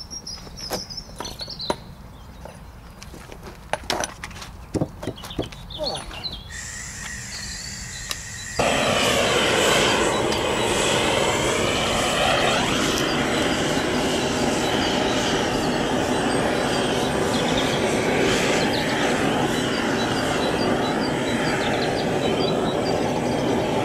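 A few sharp clicks and knocks of handling, then about a third of the way in a propane blowtorch fed from a gas bottle lights suddenly and burns loudly and steadily.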